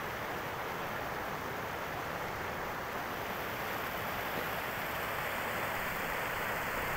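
Steady rushing noise with no distinct events, growing slightly louder toward the end.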